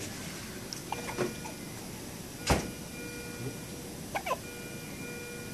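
Newborn baby hiccuping: one sharp, short hic about two and a half seconds in, with fainter small sounds from the baby about a second in and again near the end.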